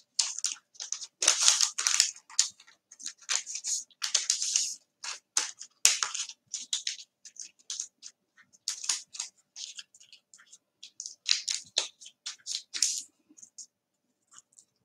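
A sheet of white paper being folded into quarters and creased by hand, rustling and crinkling in many short, irregular crackles.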